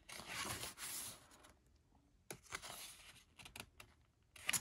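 Pages of a glossy album photo book being turned by hand: paper rustling and brushing for about a second and a half, then a few light flicks, with a sharper snap of a page near the end.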